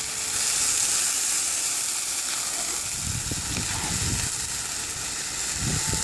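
Hot oil, carrots and meat in a cast-iron kazan hissing and sizzling steadily as water is poured in from a kettle and flashes to steam. A few low knocks come around the middle.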